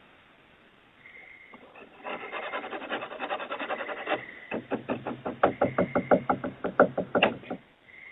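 Scratching on a wooden front door, then a rapid run of knocks, about six a second, heard through a doorbell camera's microphone.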